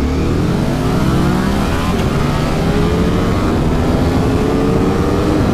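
Two V4 naked motorcycles, a Ducati Streetfighter V4 and an Aprilia Tuono V4 1100, accelerating hard from a standing start in a drag race. The engine note climbs, drops once about two seconds in at an upshift, then climbs again, with wind rushing over the microphone.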